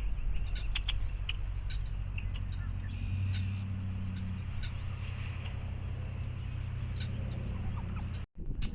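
Small wild birds chirping, with many short scattered calls over a steady low rumble. The sound cuts off abruptly near the end.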